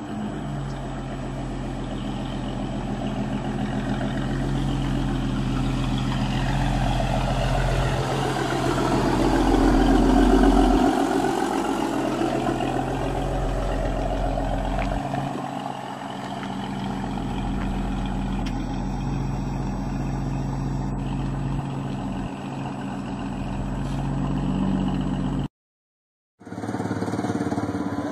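Engine of a miniature semi truck running as the truck drives up and past, loudest about ten seconds in. After a short gap of silence near the end, the small engine of a miniature Plymouth Superbird go-kart runs steadily.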